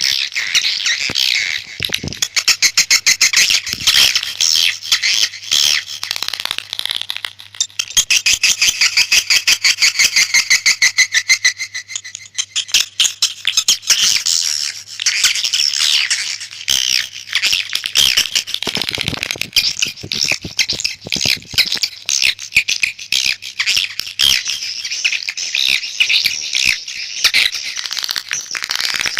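Swiftlet lure call track: dense, rapid twittering and chittering chirps from many swiftlets, the sound played to draw swiftlets into a nest house. About 8 to 12 seconds in, the chirps run as a fast, even series.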